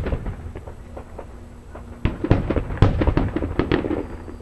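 Aerial fireworks exploding. Scattered sharp cracks come first. A dense run of bangs and crackles starts about two seconds in and thins out near the end.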